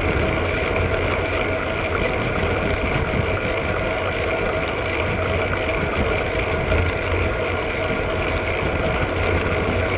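Steady rumble and hiss of a Koga Kimera road bike rolling along an asphalt road, heard from a GoPro under the saddle: tyre noise on the road surface with wind over the camera.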